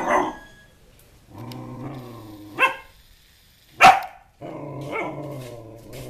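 Puppy growling and barking: two long, low, steady growls, broken by a short bark about two and a half seconds in and a loud sharp bark about four seconds in.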